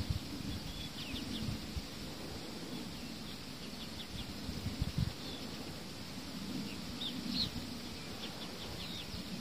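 Faint, scattered chirps of small birds over a steady low rumble, with a few soft low thumps about one and a half and five seconds in.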